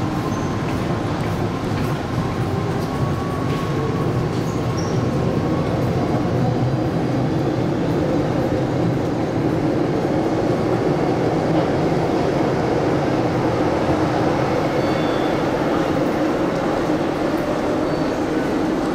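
MTR Island Line M-Train running steadily, a continuous low rumble of wheels and running gear.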